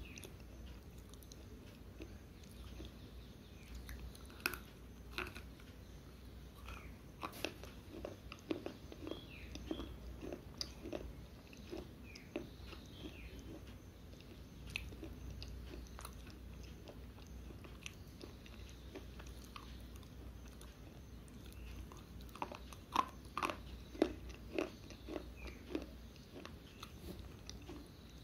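Dry Balak-brand slate pencil being bitten and chewed, with sharp crunches and crackles in irregular clusters; the loudest crunches come near the end.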